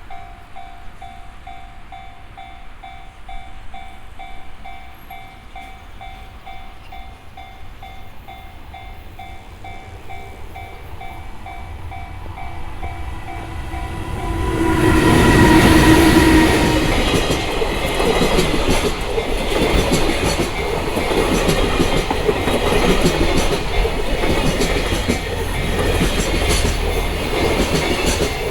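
Level crossing warning bell ringing about twice a second. A little after halfway an EH500 electric locomotive sounds a short horn blast as it arrives, then its fully loaded container train rolls past, the wagon wheels clattering steadily over the rail joints.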